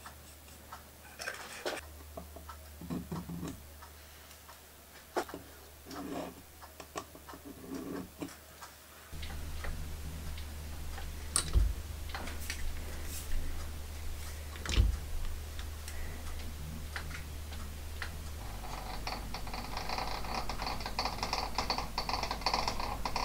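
Scattered light clicks and knocks from setting up a workpiece in a lathe's four-jaw chuck and centring it with a dial test indicator. A steady low hum joins about nine seconds in.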